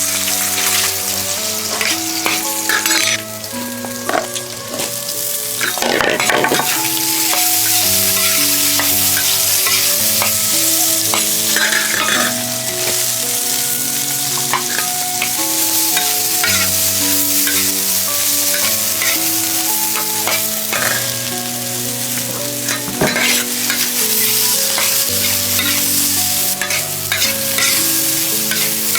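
Food frying in a hot pan, with a steady sizzle throughout, over background music of slow, held melodic notes.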